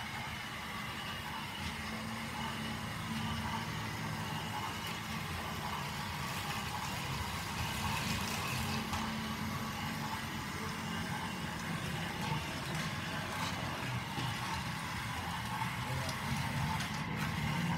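Plarail 700 Series Shinkansen toy train running on plastic track: a steady whirr from its small battery motor and gears, with light clicks from the wheels.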